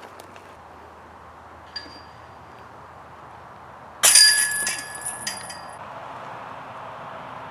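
A disc golf disc crashes into the metal chains of a basket about four seconds in, loud, with the chains jangling and ringing for about a second and a half. A faint metallic clink comes a couple of seconds earlier.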